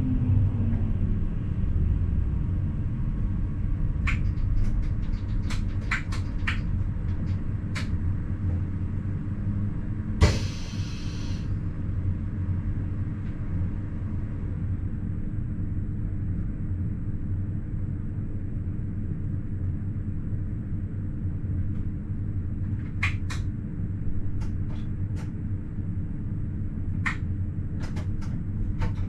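Steady low rumble of a WSB ABe 4/12 'Saphir' electric train heard from the driver's cab, with a low whine falling away in the first second. Scattered sharp clicks come through, and there is one knock about ten seconds in followed by a brief hiss.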